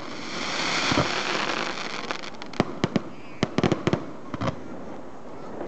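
Aerial firework shells going off in a display: a hissing crackle in the first couple of seconds, then a run of sharp bangs, several in quick clusters around the middle.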